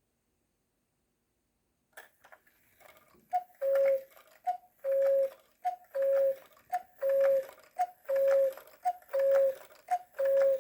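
Walzer cuckoo clock striking the hour. After a click about two seconds in, its bellows pipes sound the two-note cuckoo call, a short higher note then a longer lower one. The call repeats about once a second, seven times.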